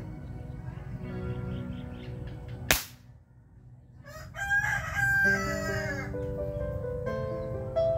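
A single sharp airgun shot about three seconds in, followed a second or so later by a rooster crowing. Background music with steady sustained tones plays before and after.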